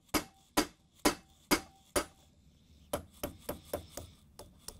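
A metal pin punch being tapped with a hammer to drive the groove pin out of a KitchenAid stand mixer's planetary: five sharp taps about half a second apart, then a run of lighter, quicker taps.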